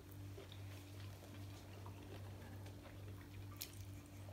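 Two people chewing sushi rolls close to the microphone: faint, scattered wet mouth clicks over a steady low hum.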